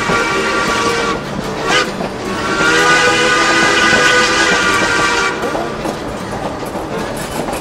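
Durango & Silverton steam locomotive whistle blowing, a chord of several notes sounded together: the first blast stops about a second in, and a second long blast sounds for nearly three seconds from about two and a half seconds in, over the rumble of the train rolling slowly.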